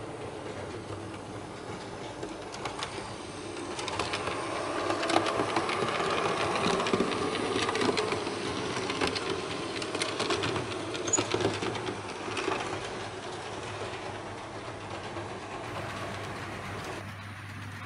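Märklin H0 model train running on metal M-track: the locomotive's small motor whirs and the wheels click over the rail joints. It gets louder between about 4 and 12 seconds in, as the train passes close.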